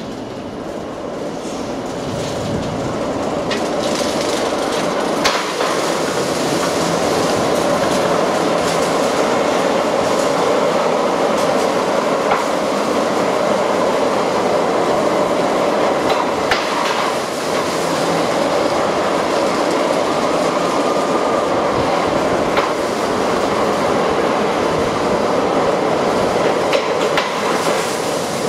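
Wagons of a long welded rail freight train rolling past close by: a steady rumble of wheels on rails with occasional sharp clicks and knocks, growing louder over the first few seconds and then holding steady.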